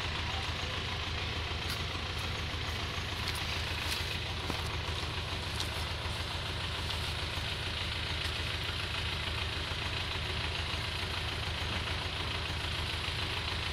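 A vehicle engine idling steadily: a low, even hum with a fast regular pulse. A few faint ticks sound over it in the first six seconds.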